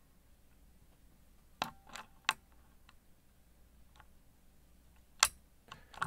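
Scattered sharp metallic clicks of a thin music-wire dimple pick working the pins inside a Mottura Champions C43 Plus euro cylinder lock under tension. A few come close together around two seconds in, and the loudest single click a little after five seconds.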